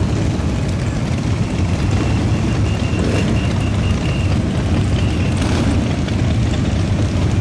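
A large group of motorcycles riding past in a procession, their engines a loud, steady, overlapping rumble.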